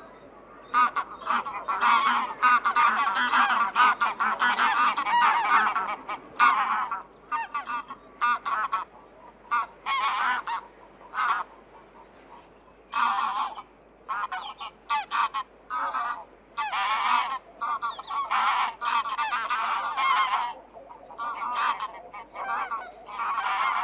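Flock of geese honking in overlapping calls: a long, dense bout first, then shorter bursts with pauses between them.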